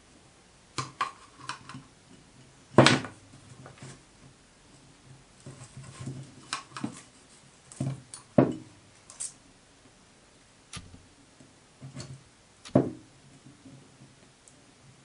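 Scattered light knocks, clicks and taps of small metal parts and tools being handled on a wooden workbench: a small copper boiler barrel being turned over, a flux brush and pot being put down, and wire and pliers being worked. The loudest knocks come about 3 s, 8 s and 13 s in.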